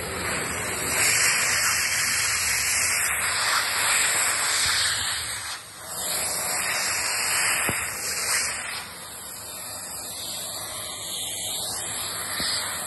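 Stick vacuum cleaner running as its brush head is worked over fabric sofa upholstery: a steady rushing hiss that dips briefly about halfway through and runs a little quieter over the last few seconds.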